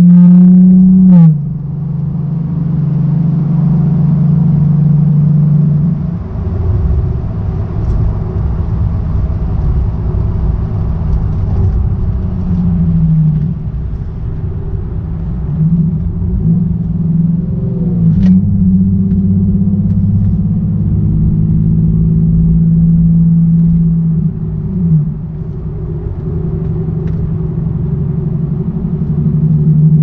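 Nissan 370Z's 3.7-litre V6 heard from inside the cabin while driving. The engine note rises and falls with throttle and gear changes, dropping sharply about a second in and again several times later, over a steady road rumble.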